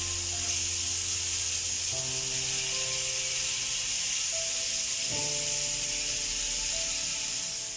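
King fish steaks frying in oil on a hot iron tawa, a steady sizzle, under background music of held chords that change about two seconds in and again about five seconds in.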